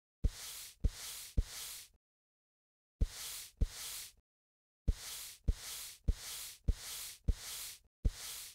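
A series of identical short sound effects, each a dull thump followed by about half a second of hiss: three in quick succession, then two, then five, then one, about 0.6 s apart within each group, with dead silence between them.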